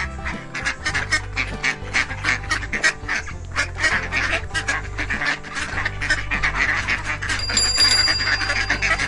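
Background music with a steady bass line, overlaid with rapid, repeated duck quacking.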